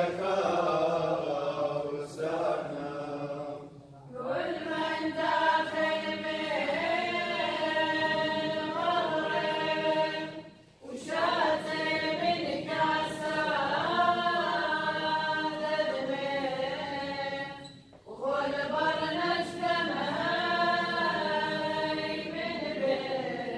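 Choir chanting an Ancient Church of the East liturgical hymn in long sung phrases, with brief pauses about four, ten and a half and eighteen seconds in.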